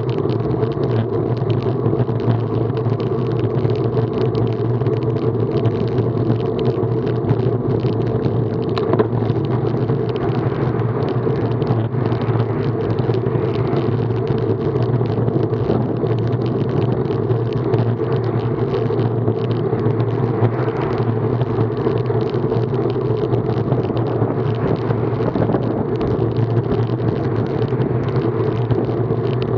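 Steady rush of wind and tyre noise picked up by a bicycle-mounted action camera riding along an asphalt road at about 24 km/h.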